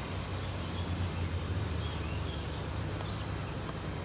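Off-road SUV engine running low and steady near idle as the vehicle crawls slowly down over rocks.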